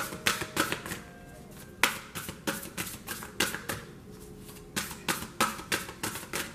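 A deck of oracle cards being shuffled by hand, an irregular run of short card slaps and ticks with a brief lull in the middle.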